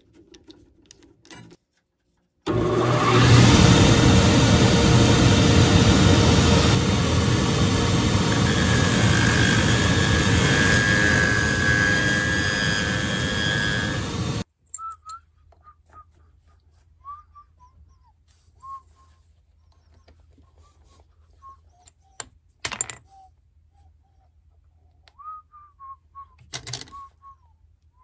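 A loud shop machine runs steadily for about twelve seconds, starting and cutting off abruptly. Afterwards there are faint, short whistle-like chirps and two sharp knocks.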